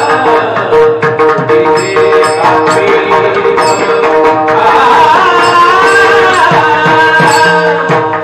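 Marathi kirtan music: a voice sings a melodic line over a steady held drone note, with mridang drumming throughout.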